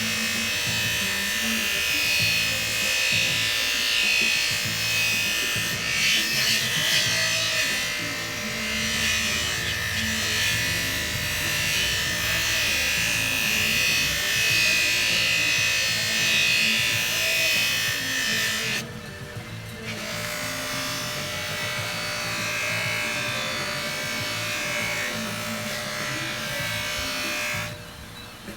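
Electric buffer running, its buffing wheel hissing against a metal hubcap that is being polished. The hiss briefly drops out about two-thirds of the way through and again near the end. Background music plays throughout.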